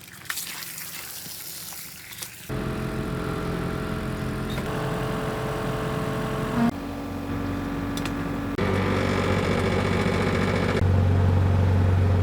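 An engine running steadily, heard in several stretches whose pitch and loudness change abruptly, louder toward the end. Before it starts, about two seconds of quieter noise with a few sharp clicks.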